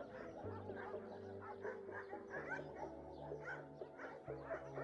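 Soft background music with held chords that change every couple of seconds, mixed with faint dog barks and yips.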